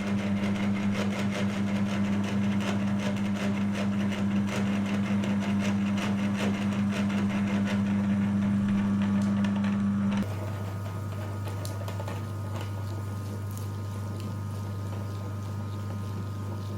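Electric meat grinder running with a steady motor hum and dense crackling as coloured mud is forced through it. About ten seconds in, the sound changes abruptly to a quieter, lower hum with little crackle.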